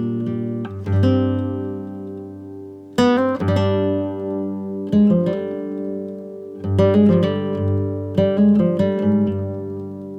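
Background music: acoustic guitar plucking notes and strumming chords that ring and fade, with strong chords about three seconds in and again around seven seconds.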